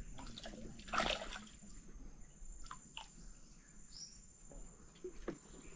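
Faint splashing and dripping of river water as a small hooked fish is lifted out on the line, with one louder splash about a second in.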